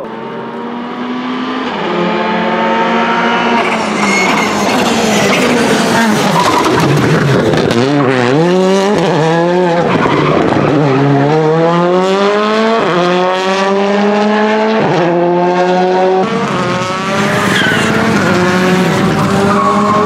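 Škoda Fabia rally car's turbocharged four-cylinder engine accelerating hard through quick upshifts, lifting off and blipping down through the gears in the middle, then pulling up through several more upshifts. A short tyre squeal near the end.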